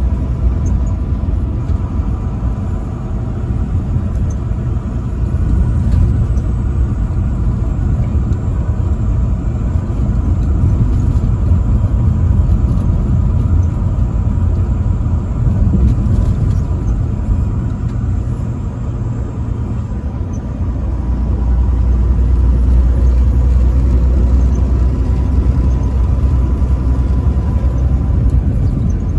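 Truck driving on the highway: a steady low rumble of engine and road noise that grows heavier about two-thirds of the way through, with a faint steady whine above it.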